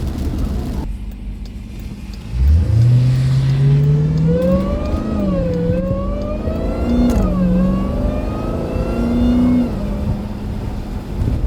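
Jeep Grand Cherokee Trackhawk's supercharged 6.2-litre V8 pulling hard from about two seconds in, with the engine note and the high supercharger whine climbing in pitch together. The pitch dips and climbs again at two upshifts, and the engine backs off near the end.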